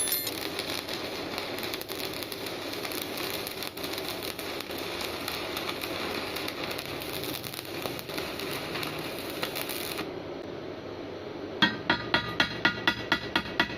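Electric arc welding a steel plate to rebar: a steady, dense crackle of the arc with many sharp pops, stopping about ten seconds in. Near the end a regular ringing beat of about four strikes a second begins.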